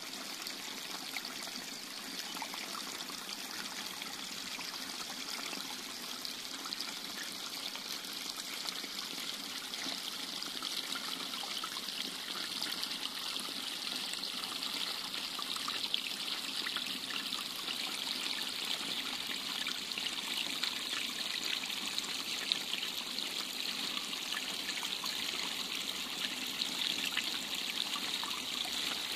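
Shallow stream trickling over mud and small stones, a steady babble that grows a little louder toward the end.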